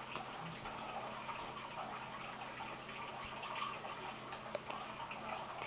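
Quiet indoor room tone: a steady low hum with faint, scattered soft ticks and rustles.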